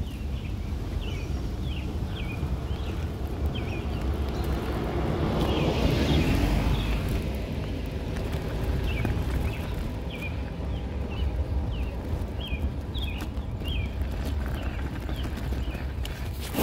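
Stroller wheels rolling over rough asphalt, a steady rumble, with a short high chirp repeating about twice a second. A louder rushing swell peaks about six seconds in.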